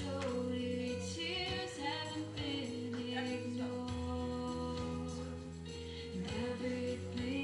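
Pop song with a female lead vocal over held backing chords.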